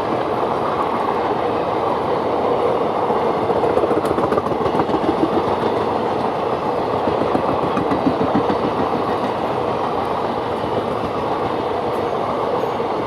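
Express train running on the track: a steady rumble with the clickety-clack of wheels over rail joints, loudest in the middle of the stretch and easing slightly near the end.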